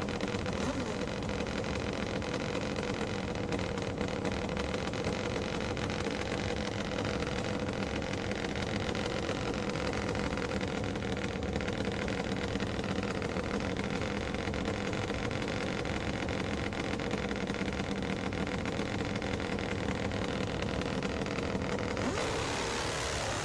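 Top-fuel dirt drag motorcycles idling steadily at the start line.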